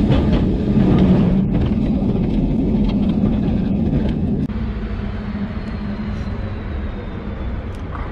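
Vintage wooden electric tram running, heard from inside the car: a loud, dense rolling rumble with a steady motor hum. The rumble eases and turns duller about halfway through.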